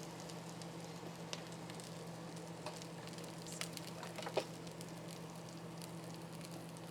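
Food sizzling in a pan, with scattered crackling pops and one sharper tick about four seconds in, over a steady low hum.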